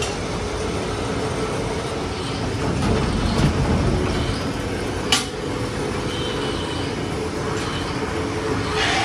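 A wheeled steel cage cart loaded with brake shoes being pushed across a concrete floor, its wheels rumbling loudest near the middle, over a steady hum of factory machinery. A single sharp clank comes about five seconds in.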